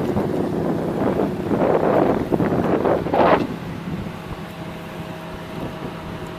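Wind buffeting the microphone in loud gusts, strongest about three seconds in, then easing off. A car engine runs steadily beneath it without revving.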